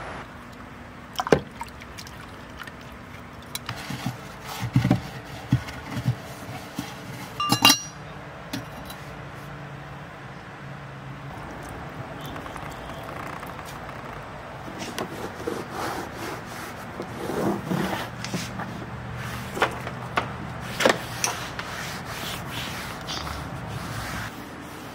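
A wet sponge and a rag scrubbing and wiping the plastic rear cargo sill and door latch of a van. Rubbing runs throughout, with scattered sharp knocks and clacks, the loudest a little over a second in and just before the eight-second mark.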